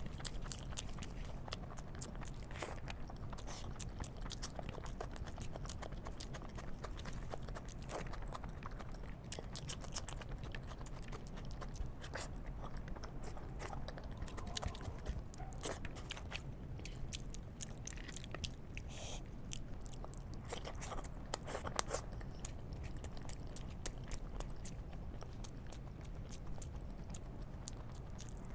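Close-miked eating: a person chewing and biting food, with many crunchy bites and wet mouth clicks, over a steady low hum.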